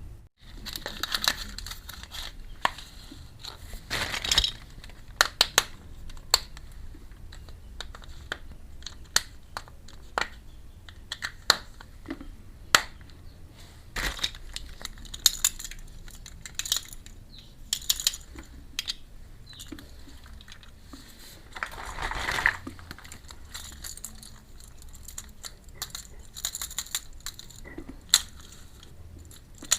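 Small clicks and taps of miniature toy kitchen pieces being handled and set down, with a few longer crinkling rustles of packaging.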